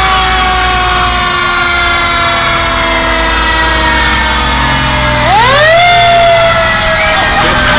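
Fire truck sirens wailing as the trucks pass: a siren slowly winding down in pitch, then about five seconds in one winds up sharply and begins to fall slowly again, over the trucks' engines running.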